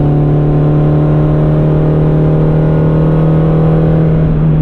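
Modified Peugeot 106 Quicksilver's engine pulling at a steady pitch, heard from inside the cabin, with road and tyre noise underneath.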